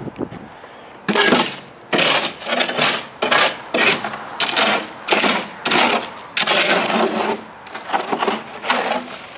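Shovels scraping and digging through loose sandy soil at a fence post hole: about a dozen short, gritty strokes in an uneven rhythm, starting about a second in.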